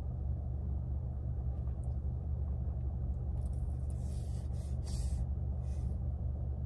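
Car engine idling, a steady low rumble heard from inside the cabin. A couple of brief hissing sounds come about four and five seconds in.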